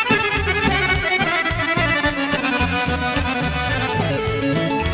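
Accordion playing a quick melodic run over a pulsing bass line: an instrumental break in a Serbian folk song, with no singing.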